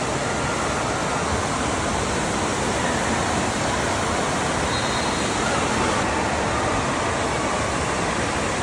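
Steady rush of water in an indoor water park, an even, unbroken noise.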